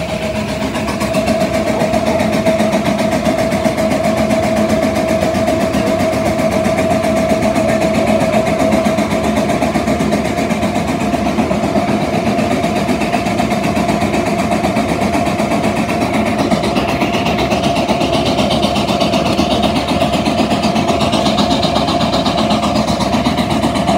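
Steam traction engine working under load through a long flat belt into a dynamometer: a steady mechanical running noise with a constant mid-pitched tone, turning brighter about two-thirds of the way in.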